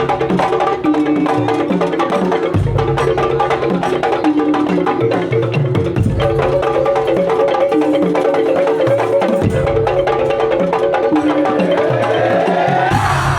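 Madurese daul (tongtong) percussion ensemble playing: wooden slit-drum strikes and drum beats under a pitched melodic line. A rising pitch glide sweeps up about a second before the end.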